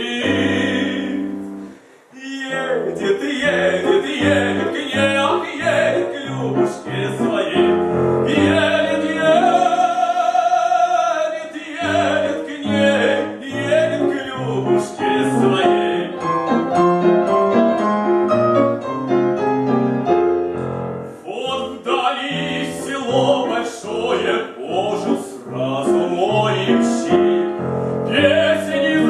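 A classically trained voice sings a Russian romance in operatic style to piano accompaniment. There is a short break in the sound about two seconds in.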